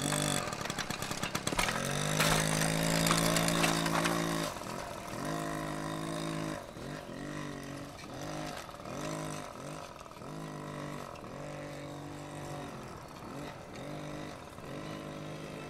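A small moped engine is held at a steady high rev for a few seconds, then revved up and down repeatedly, about once a second.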